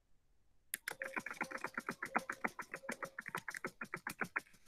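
Typing on a computer keyboard: a quick, even run of key clicks, about seven a second, starting just under a second in and stopping shortly before the end, as a string of numbers is typed in.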